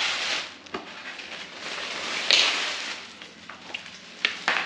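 Clear plastic bag crinkling and rustling as it is pulled off a new longboard, loudest about two seconds in, with a couple of sharp clicks near the end.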